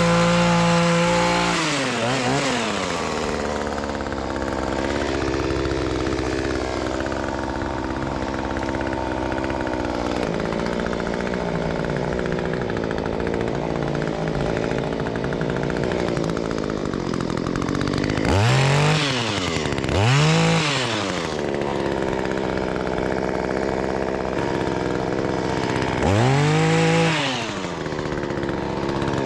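Two-stroke chainsaw running at full throttle with a steady high pitch, then falling off about two seconds in to a lower, uneven speed. Later it is revved up sharply and let drop three times, twice in quick succession and once more near the end.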